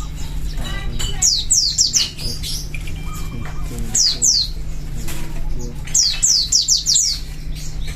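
Caged white-eyes (pleci) singing: three quick runs of sharp, high, falling whistles, about a second in, at the middle and again near the end, over a steady low hum.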